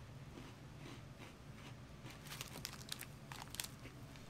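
Faint crinkling of a plastic biscuit wrapper being handled: a short run of sharp crackles a little over two seconds in, after a few soft ticks.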